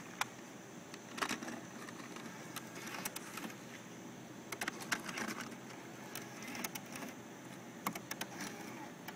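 Irregular clicks and short clacks over a steady hiss, from a Panasonic DVCPRO AJ-LT85 laptop editor being operated: its buttons and tape mechanism.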